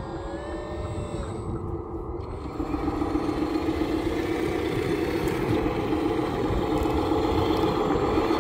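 Radio-controlled scale model Volvo A40G articulated dump truck driving over sand: a steady mechanical running sound that grows louder about two and a half seconds in as the truck pulls away and comes toward the camera.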